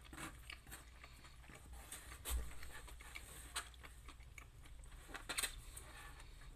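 A person chewing and eating, with soft mouth sounds and a few sharp clicks and taps; the loudest, with a dull thump, comes about two seconds in.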